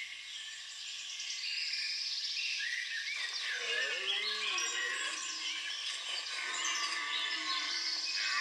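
Many small birds chirping and twittering busily and irregularly, with a lower wavering sound joining about three seconds in.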